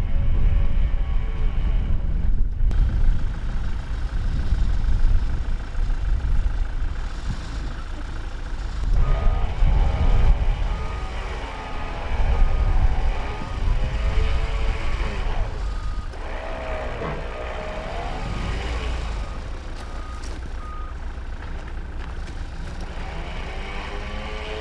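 A truck's engine rumbles under a reversing alarm, which beeps repeatedly at one steady pitch through the middle of the stretch as the vehicle backs up.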